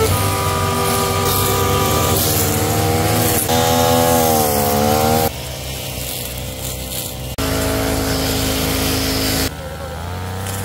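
Small engine of farm machinery running, its pitch rising and falling as the throttle changes, with abrupt jumps in sound at a few cuts between clips.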